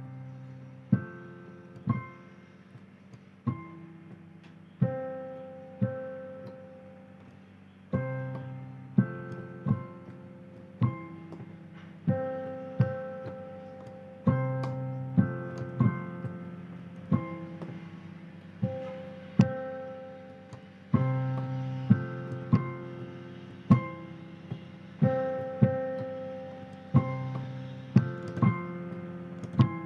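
Solo piano playing a slow melody over chords, with notes and chords struck about once a second and left to ring and fade.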